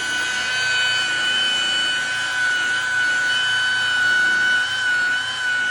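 Makita high-speed rotary buffer running steadily with a high-pitched whine while polishing a headlight lens with cutting cream.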